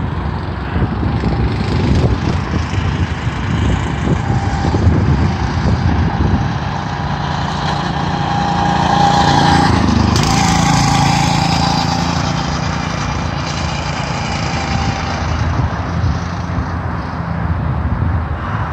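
Small go-kart engine running around the track with a steady whine that swells and bends down in pitch as a kart passes, loudest about nine to eleven seconds in. Wind buffets the microphone with a rumble.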